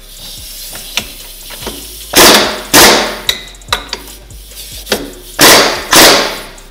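Impact wrench running in four short bursts, two pairs about three seconds apart, as it tightens a bolt at the front of the engine.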